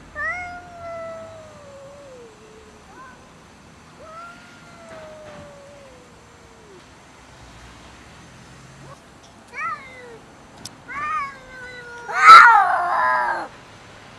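Domestic cats yowling in an aggressive standoff over a dish of food: two long drawn-out moans that slide down in pitch, then shorter calls about ten seconds in, and a sudden, loud, harsh yowl near the end.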